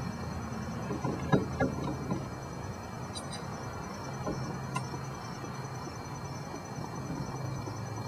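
Light metallic clicks and taps of a steering wheel puller being handled and its bolts threaded into the steering wheel hub, several in the first half and a couple near the middle, over a steady low hum.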